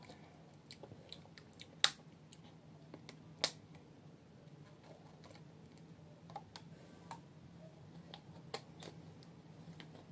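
Quiet chewing and handling noises: scattered soft clicks and crunches, with two sharp clicks about a second and a half apart near the start, over a faint steady low hum.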